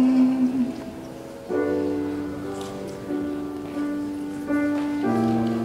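A male jazz singer holds a sung note through a microphone until it stops about half a second in. A grand piano then plays slow sustained jazz chords alone, a new chord about every second.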